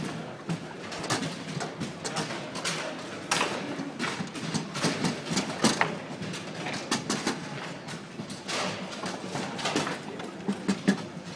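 Table football in play on a Bonzini babyfoot table: irregular sharp clacks and knocks of the ball striking the players and table walls, with rods sliding and rattling, the loudest hits about six and eleven seconds in.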